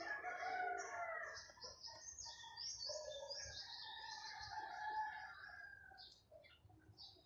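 Birds chirping in a dense run of short, rapid, overlapping calls. A longer, lower drawn-out call sounds in the first second and a half.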